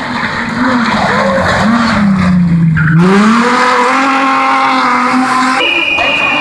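Rally car engines revving hard through a corner, with tyres skidding. The engine note sags, then climbs steeply about three seconds in as a car accelerates away.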